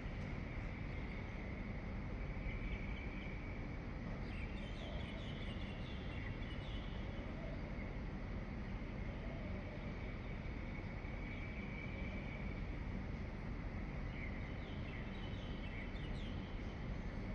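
Dawn outdoor ambience: a steady hiss with a faint, continuous high drone, and birds chirping in short runs about four seconds in and again near the end.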